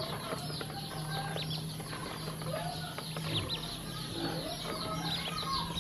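A group of ducklings peeping, many short high chirps that fall in pitch and overlap several times a second.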